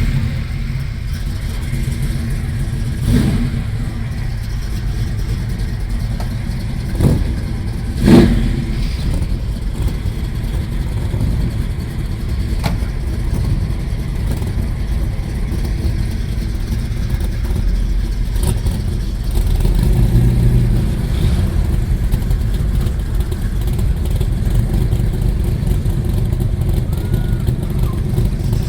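A classic car's big engine, just started, running at idle with a deep steady rumble, broken by three short sharp sounds about three, seven and eight seconds in. A little after twenty seconds in it revs up and keeps running louder.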